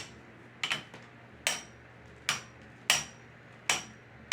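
Two 3D-printed plastic Beyblade spinning tops knocking into each other as they spin in a stadium. About six sharp clacks come at a steady pace of roughly one every three-quarters of a second, typical of two tops in a standby stamina battle.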